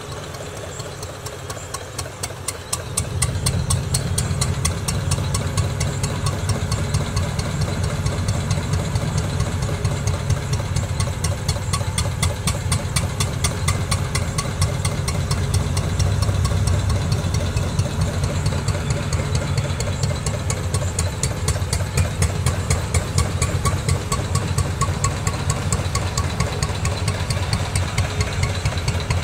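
Arrow C-66 single-cylinder oilfield engine running steadily, powering a pumping unit, with a rapid, even firing beat over a low hum. The sound gets louder about three seconds in.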